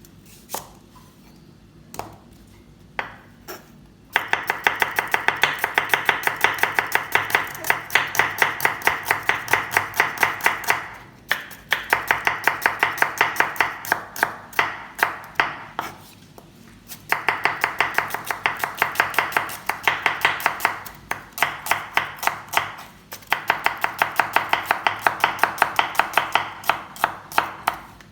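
Knife chopping on a cutting board: a few single knocks, then runs of fast, even strokes, several a second, broken by short pauses.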